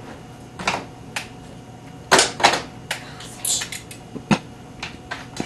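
Irregular sharp clicks and clacks of dry-erase markers being handled, picked from the whiteboard tray and their caps worked off, while a marker that won't write is swapped. The clicks come singly and in small clusters, loudest about two seconds in.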